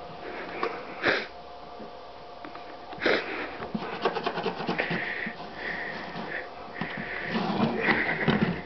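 Domestic cat sniffing and snuffling with its nose in an open coffee can, a string of short breathy sniffs, with a few knocks of the can's plastic lid early on and quick wet clicks of the cat licking its lips near the middle.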